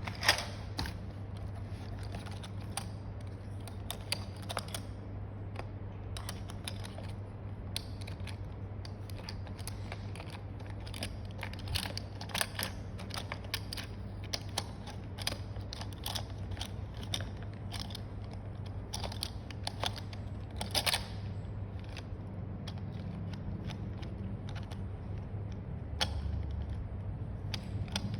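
Scattered light clicks and knocks of objects being handled, over a steady low hum.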